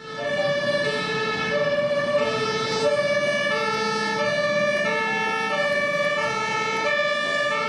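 Two-tone hi-lo emergency vehicle siren, switching evenly between a higher and a lower tone about every half second.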